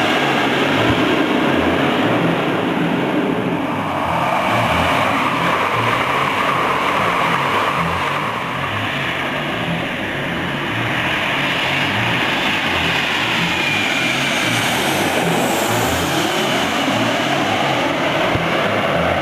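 Jet airliners on low final approach passing overhead: a loud, steady engine rumble and whine, with the pitch sweeping as each one goes over, twice in the second half.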